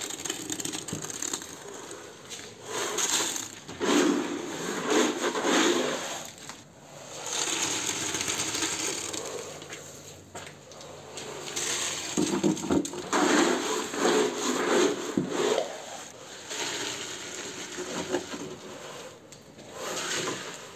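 Wet sand-and-cement mortar being scraped and packed as ceramic wall tiles are pressed into place against a brick wall: irregular bursts of gritty scraping and crunching, each a few seconds long.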